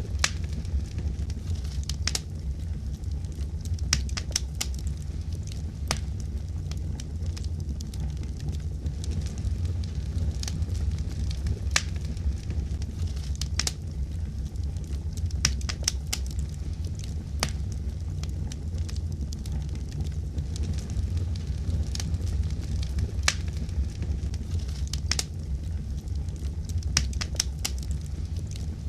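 Fireplace fire crackling over a steady low rumble of flames, with irregular sharp pops and snaps every second or so.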